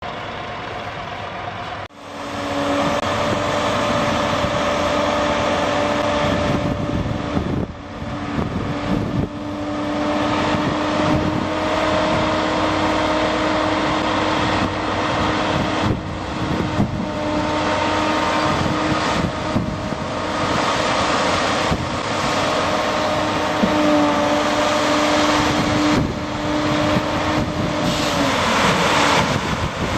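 Tipper truck's engine running with its hydraulic pump whining steadily as it raises the tipping trailer body, the whine sliding down and stopping near the end.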